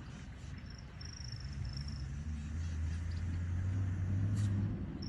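A vehicle engine running low and steady. It grows louder through the middle and ebbs near the end. Faint high chirping sounds over it early on.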